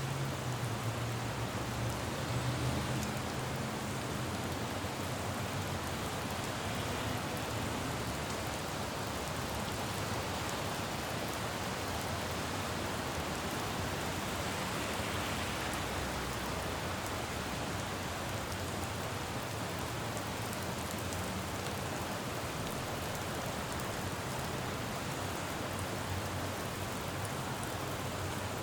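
Steady rain falling on pavement, with a low rumble of road traffic that is a little stronger in the first few seconds and swells briefly about halfway through.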